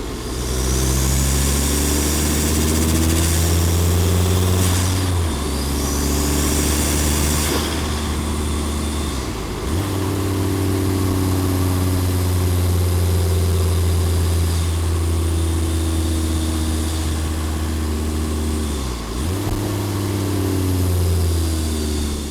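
Volvo D5 2.4-litre five-cylinder turbodiesel running under the bonnet, with turbo and cold-air-intake sounds. A high whistle rises and falls twice in the first eight seconds, and the engine note breaks briefly about 10 and 19 seconds in.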